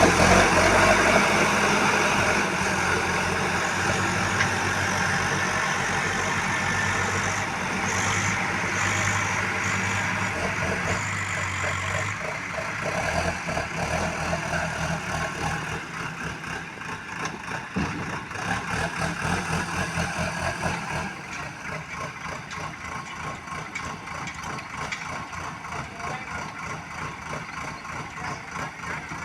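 Diesel engine of a BULL HD 76 backhoe loader running steadily at raised revs, then dropping back about twelve seconds in and settling to a quieter, even idle for the last third.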